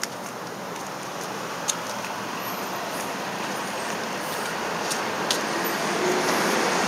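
Road traffic noise: a broad rush of passing vehicles that builds slowly louder, with a few short clicks over it.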